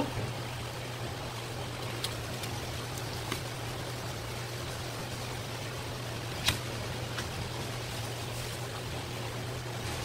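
A filleting knife working through a rock bream, giving a few short sharp clicks and taps, the loudest about six and a half seconds in, over a steady hiss and low hum.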